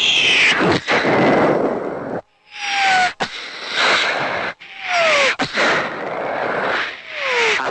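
Cartoon explosion sound effects: about four loud blasts in a row, several led in by a falling whistle, each cut off sharply.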